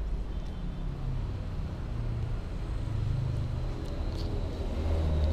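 A low, uneven background rumble, with a few faint clicks about four seconds in as a kitten chews rice close by.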